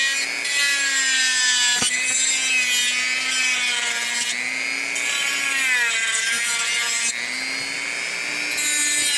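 Small high-speed power tool with a cutting blade cutting through the plastic inner fender of a diecast model truck: a steady motor whine that sags in pitch a few times as the blade bites, over a gritty cutting noise, with one sharp click about two seconds in.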